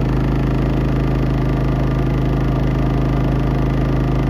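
Champion 4500-watt dual-fuel inverter generator running steadily on propane: an even engine hum from its single-cylinder engine.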